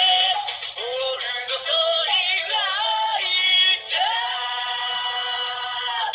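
A Kamen Rider Saber DX toy's small speaker playing a sung, Japanese-style electronic sound effect: a synthesized voice gliding between held notes over music, thin with no bass. It is the toy's response to three Wonder Ride Books being scanned.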